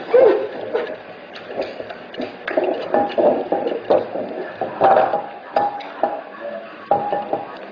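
A bowl knocking and scraping on a hard floor as a kitten plays in it: irregular clatters and clicks.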